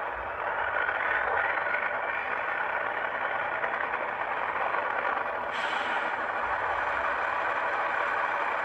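Model diesel locomotive's sound decoder playing a running diesel engine through a small speaker, steady and thin with little deep bass. A short burst of brighter hiss comes about five and a half seconds in.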